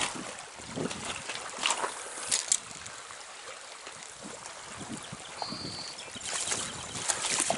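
Small trout stream running, a steady rush of water, with a few brief rustles.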